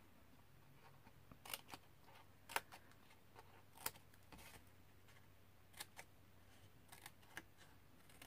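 Small craft snips cutting wedges out of scored cardstock: a dozen or so short, sharp snips and clicks in small clusters, with near quiet between them.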